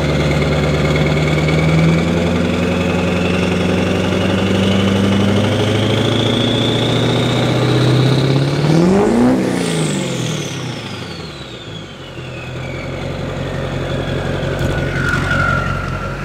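Chevrolet Duramax LB7 6.6-litre V8 turbodiesel being revved once warm, to check the newly installed MBRP 3-inch turbo downpipe for leaks. The revs climb for several seconds with the turbo whistle rising, then there is a sharp blip about nine seconds in. The engine drops back to idle as the turbo's whistle winds down over several seconds, with a note that sounds deeper.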